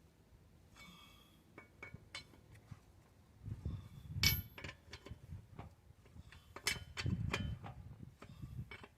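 Metal clinks and knocks of a socket wrench on wheel lug nuts, with a short metallic ring about a second in and louder knocks around four and seven seconds in.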